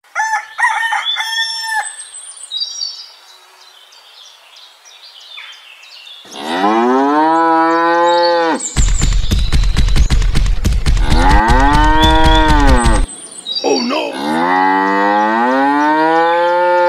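Cows mooing: three long, drawn-out moos, each rising and then falling in pitch, the middle one deeper and rougher with a low rumble under it. A few short high-pitched chirps come first.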